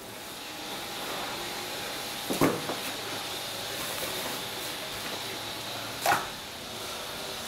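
Hands rubbing salt into raw chickens on a steel worktable, with two sharp slaps of the meat about three and a half seconds apart, the first the louder, over a steady background hiss.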